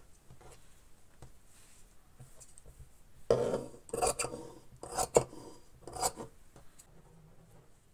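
Dressmaking scissors cutting through thin printed fabric: faint rustling at first, then a run of about five quick snips in the second half.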